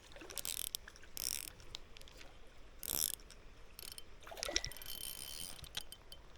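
Spinning reel being cranked to bring in a hooked chub, its gears clicking and whirring in short, uneven spells.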